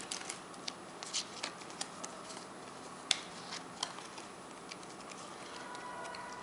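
Faint, scattered paper clicks and rustles of Panini sticker packets and stickers being handled and opened, with one sharper click about three seconds in.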